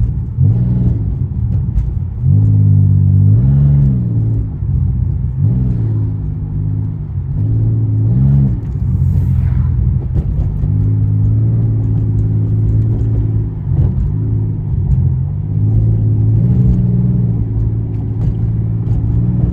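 Pontiac Grand Prix GT's 3.8-litre V6 running through a catless exhaust while driving, a steady low drone. The revs rise and fall a couple of times in the first half, then settle into steady cruising.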